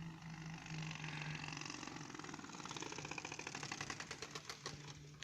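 Playing cards held by clothespins to a bicycle frame, flapping against the wheel's spokes as it turns: a fast, even clatter that imitates a motorcycle engine. The clicks spread out near the end as the wheel slows.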